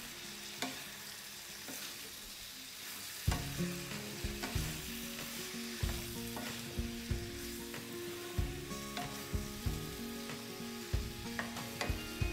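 Brinjal and drumstick pieces sizzling in an iron kadai as a spatula stirs them; from about three seconds in the spatula knocks and scrapes against the pan again and again.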